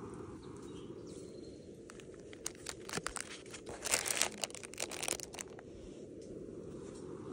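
Plastic snack wrappers and food packets crinkling as they are handled, in a bout of sharp crackles lasting about three seconds in the middle, over a steady low rush in the background.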